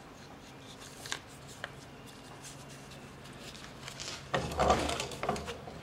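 Folded leather holster blank being handled and pressed into the steel jaws of a bench vise: a couple of light clicks, then a louder burst of rubbing and scraping about four seconds in.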